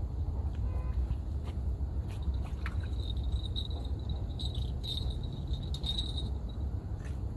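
Wind rumbling steadily on the microphone on an open shoreline. For a few seconds in the middle a faint, high, thin chirring comes and goes, with a few light clicks.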